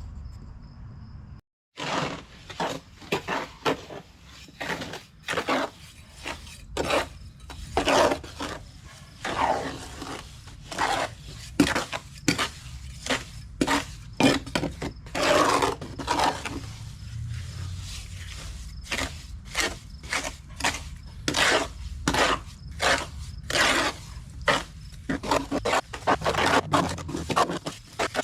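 Repeated scraping strokes of a tool working through wet concrete countertop mix, one or two a second at an uneven pace.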